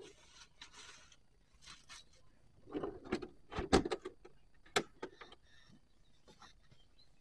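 Fishing gear being stowed in a car's roof box and boot: rustling and knocking, with a heavy thump about four seconds in and a sharp click just before five seconds, as a lid is shut.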